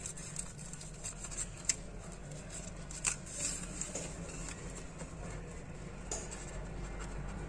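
Faint scraping and a few small clicks as a phone's display assembly is pried and peeled off its frame, over a steady low hum.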